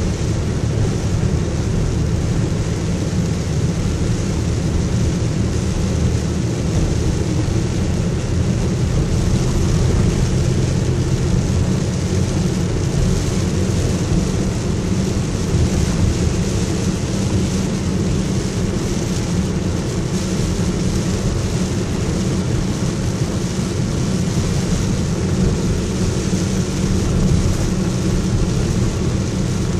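Steady in-cabin drive noise in heavy rain: engine and tyre hum on wet pavement, with rain hitting the windshield and body.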